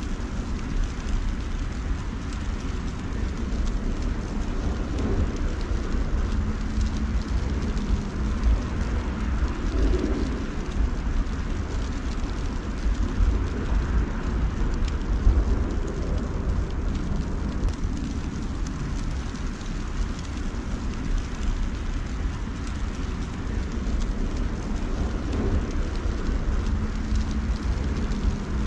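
Outdoor snowfall ambience: a steady hiss like light rain from wet snow falling, over a low, fluttering wind rumble on the microphone.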